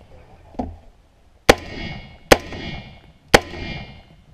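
Rifle shots fired about one a second: three loud, sharp reports, each followed by a short fading metallic ring from steel targets being hit. A fainter crack comes about half a second in.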